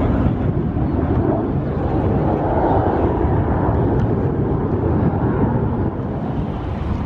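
F-16 Fighting Falcon single-engine jet fighter flying a display pass, its engine making a loud, steady rushing noise that eases slightly near the end.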